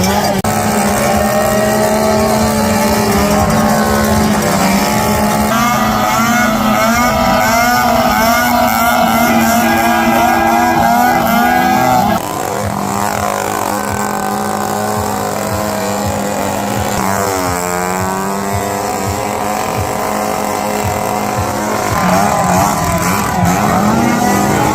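Several motocross bike engines running and revving, their pitch climbing and falling through gear changes as bikes accelerate and pass. The sound drops a little in level about halfway through.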